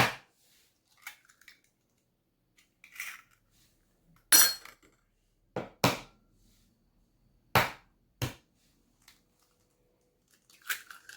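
Eggs cracked against the rim of a bowl: a series of sharp knocks of shell on the bowl, irregularly spaced a second or two apart.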